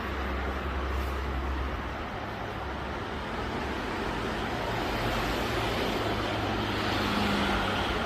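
Steady road traffic noise, with a low hum in the first couple of seconds and the noise growing a little louder in the second half.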